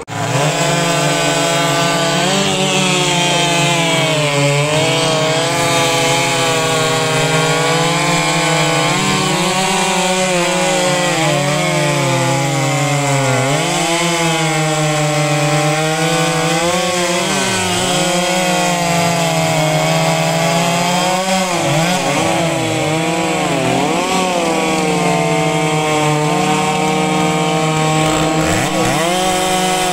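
Ported Stihl chainsaw running at full throttle while cutting through a thick log, with the engine note dipping briefly several times as the chain loads in the cut.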